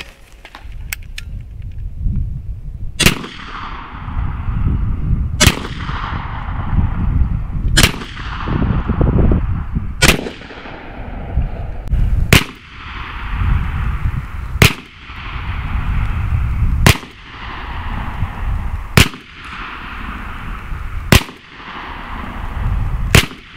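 BinTac T9 9 mm air pistol, tethered to an air supply, firing ten single shots spaced about two and a quarter seconds apart, each a sharp report. A low rumble fills the gaps between shots.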